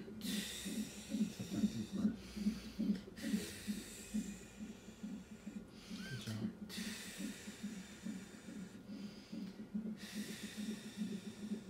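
A woman in labor breathing heavily through a contraction: long drawn breaths, with a quieter gap of a few seconds past the middle. A steady, quick, low pulsing of about two and a half beats a second runs underneath.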